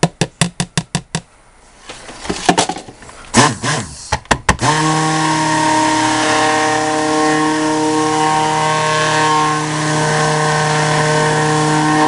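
Handheld stick blender motor running steadily at one speed, mixing lye solution into soap-making oils to emulsify the batter; it switches on about four and a half seconds in. Before it starts, a quick run of clicks and a few knocks.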